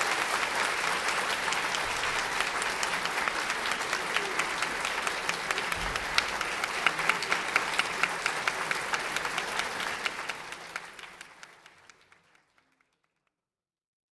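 Audience applauding. The dense applause thins into separate claps and dies away about twelve seconds in.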